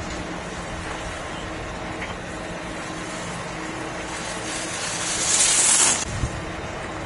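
Skis hissing and scraping on hard-packed snow, swelling as a giant slalom racer carves past close by and cutting off suddenly about six seconds in, followed by a low bump. A faint steady hum runs underneath.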